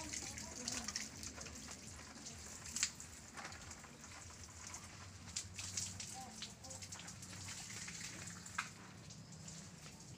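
Light rain pattering on garden foliage and paving, with scattered sharp drips and taps.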